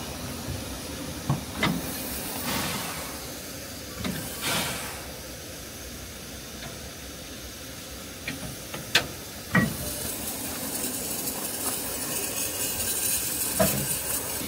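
Steam hissing steadily from the standing narrow-gauge saddle-tank steam locomotive Sir Haydn, louder in the last few seconds, with a few sharp clicks and knocks.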